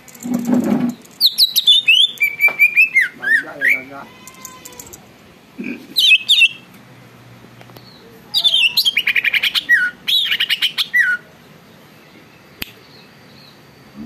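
Caged green leafbird (cucak ijo) singing loud, rapid phrases of sweeping whistles and fast trills in three bursts with pauses between. A short low muffled sound comes just before the first burst.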